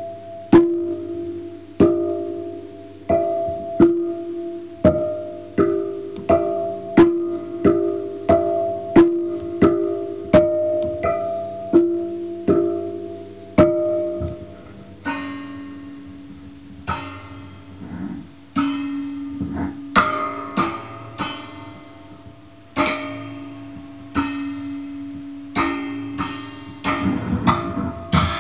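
Handmade amplified noise box, a metal box fitted with springs and threaded rods, being plucked: twangy plucks that ring on a steady pitch and die away, about two a second. About halfway the ringing pitch drops, the strikes turn scratchier and less regular, and they come quicker near the end.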